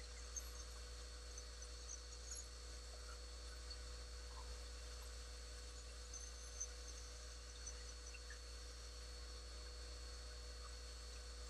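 Faint steady low hum with thin steady tones, like mains or motor hum in a workshop, with a few faint small clicks scattered through it as a metal caliper is handled against the pen blank.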